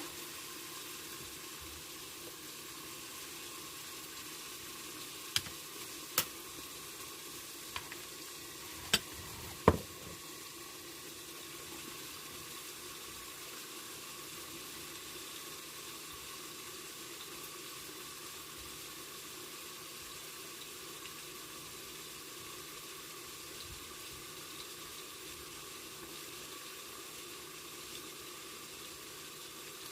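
Pork frying under a lid, a steady sizzle as the meat browns, with a few sharp clicks between about five and ten seconds in.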